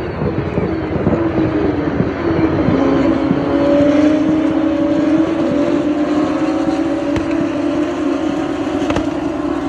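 A pack of single-seater racing cars running through a corner, several engines sounding at once with overlapping pitches that glide and then hold steady.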